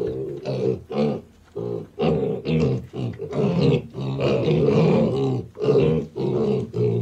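Six-week-old piglets grunting and squealing in a rapid string of short pitched calls, with a brief lull about a second in.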